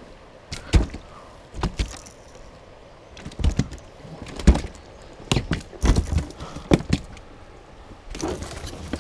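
Plastic Jackson fishing kayak knocking and thumping, about nine irregular knocks spread over several seconds. A steady rushing noise starts near the end.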